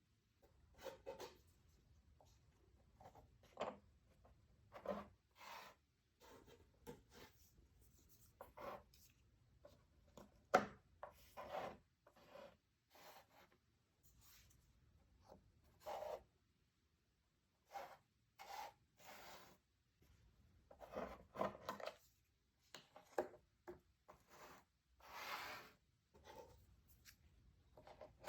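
Jigsaw puzzle pieces being handled: scattered soft rubs, slides and taps at irregular intervals, with a sharper click about ten seconds in.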